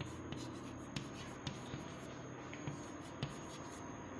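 Chalk writing on a blackboard: faint scratching of the chalk, with several sharp little taps at uneven intervals as strokes start.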